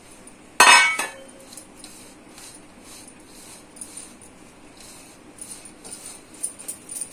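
A sharp metallic clink about half a second in, ringing briefly, as of steel against the stainless steel mixing bowl. Then faint rustling of hands rubbing powdered sugar into crumbly roasted besan in the bowl, with light ticks of bangles.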